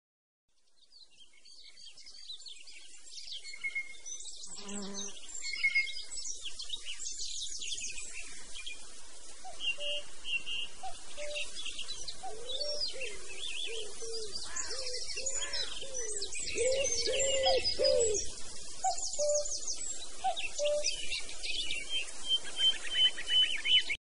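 A mixed chorus of wild birds: many overlapping chirps, trills and whistles, with a run of lower, wavering whistled notes in the middle. The sound fades in at the start.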